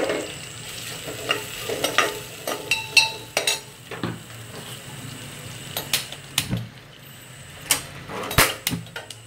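A steel ladle scrapes and clinks irregularly against an aluminium kadai while sliced onions and curry leaves are stirred. Under it is a light sizzle of the onions frying in oil.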